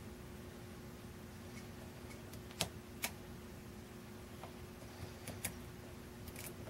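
Faint, sharp clicks of a hook pick working the pin stacks of a 6-pin Schlosser Technik brass euro cylinder during single-pin picking: two clicks about two and a half and three seconds in, then a few lighter ones near the end.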